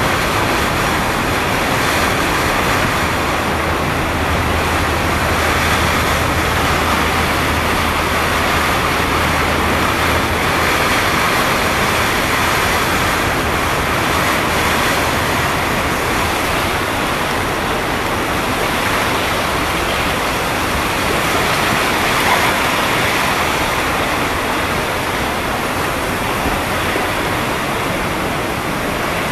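Hurricane wind and storm-surge water rushing: a loud, even noise with no letup.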